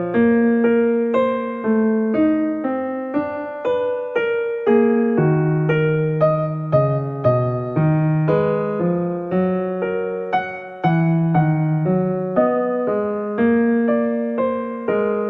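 Background music: a slow piano melody, notes struck and left to fade, with chords underneath.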